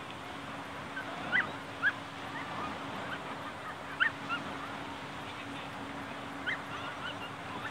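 Distant dogs barking in short, sharp, rising yips, about five spread over several seconds, over a steady background hiss and a faint low hum.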